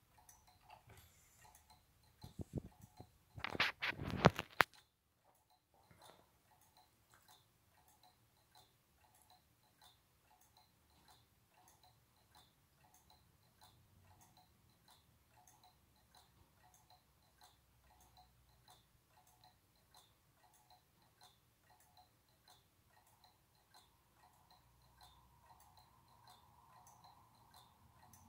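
Dr Woodward's gearless pendulum clock ticking with faint, evenly spaced ticks from its movement. About two to four seconds in, a louder burst of clattering knocks stands out above the ticking.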